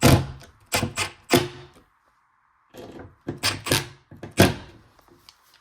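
Clicks and knocks of a metal slow-close cabinet hinge being handled and fitted to a wooden cabinet door. The sounds come in irregular sharp bursts, cut by a brief total silence about two seconds in.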